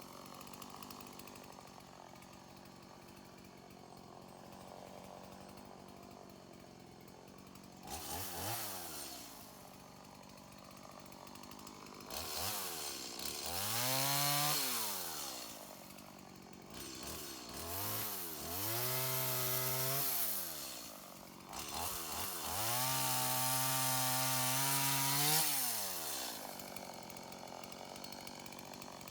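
Two-stroke chainsaw idling, then revved up and let back down to idle about four times, the last rev held for a few seconds.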